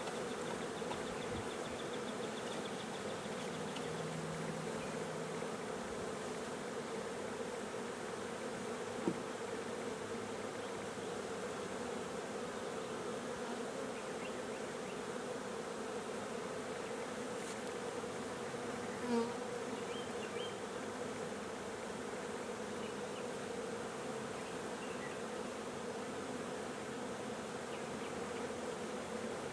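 Many honeybees buzzing steadily around an open hive as frames are handled, a constant hum. A sharp tap sounds about nine seconds in and a short knock about nineteen seconds in.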